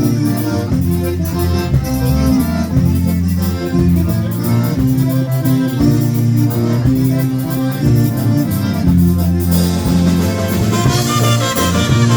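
Live polka band playing an instrumental passage with accordion over a steady bass beat; about nine seconds in the sound grows brighter as higher instruments come in.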